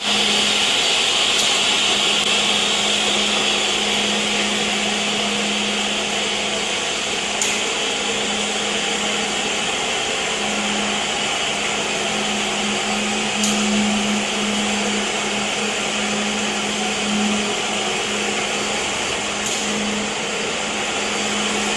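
Ride-on wet floor scrubber running steadily: a continuous motor and suction hiss over a constant low hum, with a faint tick about every six seconds.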